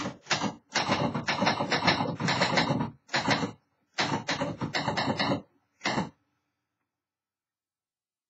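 1970s Remington Streamliner manual typewriter being typed on: rapid key strikes in bursts with short pauses, stopping about six seconds in.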